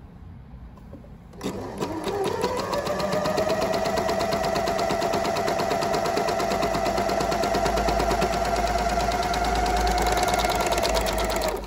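Janome 8002D overlock machine (serger) stitching a 4-thread wide overlock seam along a fabric edge, as a test run after its looper tensions were tightened. It starts about a second and a half in, speeds up within a second to a fast, even stitching rhythm, and stops suddenly just before the end.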